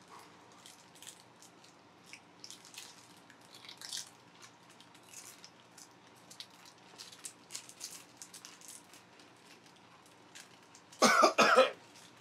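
Faint scattered crunches of an extremely hot tortilla chip being chewed, then, about eleven seconds in, a loud cough of several quick hacks as the Carolina Reaper and Naga Viper pepper heat catches a man's throat.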